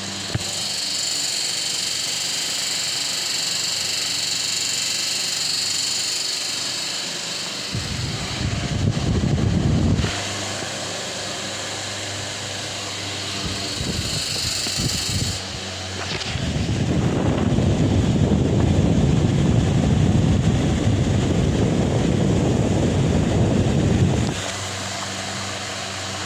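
A 50 cm Delta Gold wall fan running: a steady rush of air over a low motor hum. A deeper rushing noise swells in twice, briefly about a third of the way through and then for about eight seconds in the second half.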